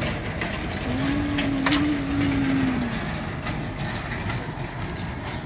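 Steel wagons of a narrow-gauge oil palm plantation train rolling slowly past with a steady rumble and rattling clatter of wheels on rail. A single low, steady tone sounds for about two seconds near the middle.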